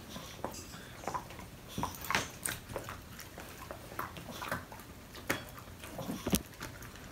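Dogs chewing chicken stick treats: irregular clicks and crunches of teeth on the chews, with a sharper crack about six seconds in.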